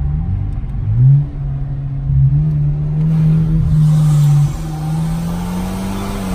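Car engine running under acceleration; its pitch drops about a second in, then climbs and holds, rising again near the end.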